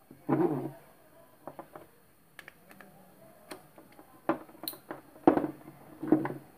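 Clicks and knocks of bayonet-base LED bulbs being pushed and twisted into black plastic bulb holders, with three louder rubbing sounds, one about half a second in and two near the end.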